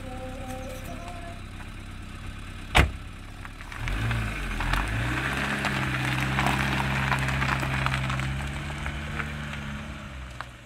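A single sharp knock, then from about four seconds in a motor running with a steady low hum, fading near the end.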